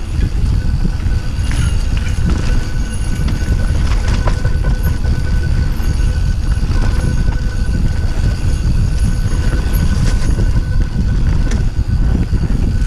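Mountain bike ridden fast downhill over a dirt singletrack: a loud, constant rumble of tyres on dirt and wind buffeting the microphone, with sharp knocks and clatter as the bike hits bumps, and a thin steady tone above the noise.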